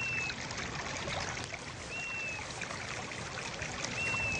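Steady rushing noise like a running stream, with a short high whistle, dipping slightly at its end, heard three times about two seconds apart.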